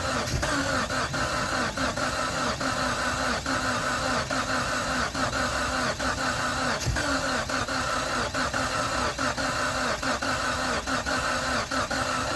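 A 2G Mitsubishi Eclipse GSX's 4G63 four-cylinder turbo engine being cranked by the starter, a steady rhythmic churning that never catches. The engine won't start after the fuel pressure regulator diaphragm was replaced.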